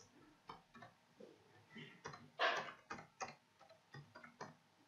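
Faint, irregular clicks of a computer keyboard and mouse, with one louder, longer noise about halfway through.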